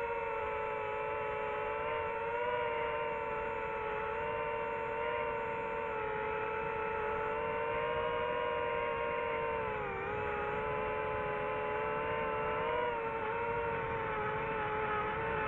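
DJI FPV quadcopter's motors and propellers whining steadily in flight, recorded by the drone's onboard camera. The pitch dips briefly about ten seconds in as the throttle eases, then climbs back.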